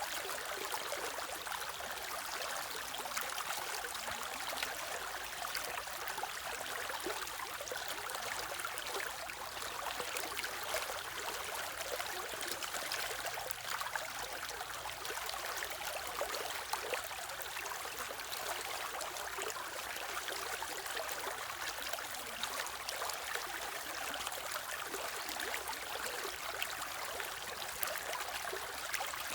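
Shallow stream running steadily over stones, a continuous splashing and trickling.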